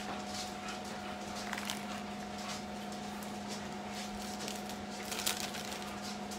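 Faint crinkling of a plastic ground-beef wrapper and soft handling of raw ground beef, a few scattered rustles over a steady low hum.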